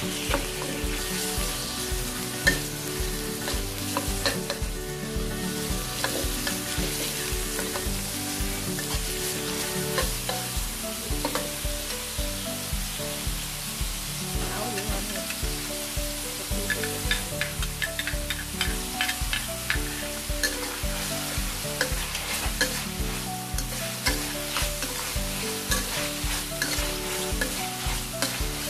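Pork and shallots sizzling in hot oil in a stainless steel wok while a metal spatula stirs and scrapes them, with the spatula's sharp scrapes and clacks on the wok coming thick and fast in the second half.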